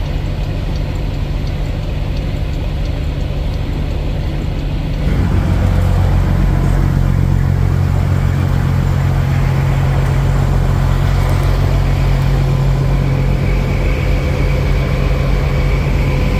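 Semi truck's diesel engine running steadily. It gets louder and fuller about five seconds in.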